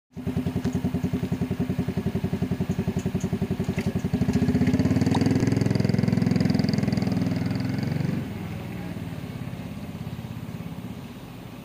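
Diesel engine of a container sidelifter truck running with a rhythmic idle beat, then speeding up and running louder from about four seconds in, with a faint high whine, as the side-lift hydraulics are brought into use. It drops back to a quieter idle about eight seconds in.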